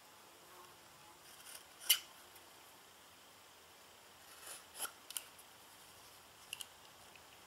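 Utility knife blade slicing a paper pattern flush with the edge of a wooden block: a few short, sharp cutting scrapes, the loudest about two seconds in, with more near the end.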